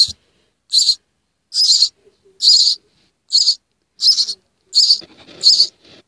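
Hand-reared nestling songbirds begging for food: a run of eight short, high-pitched rasping calls, about one every 0.8 seconds.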